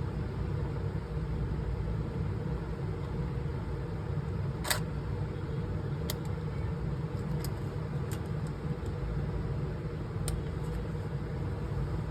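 Steady low background rumble with a few small, sharp clicks scattered through it, the loudest a little before halfway.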